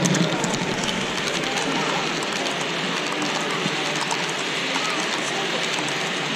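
Hubbub of many visitors talking at once, echoing in a large stone hall, with model trains running on the layout mixed in.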